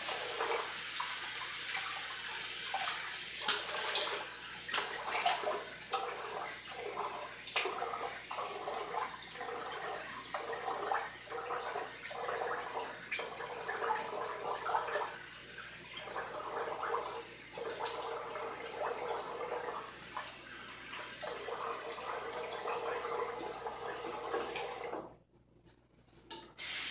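Water running from a tap, with many short swishing strokes of a razor being drawn upward over stubble and rinsed. The sound cuts off suddenly about 25 seconds in.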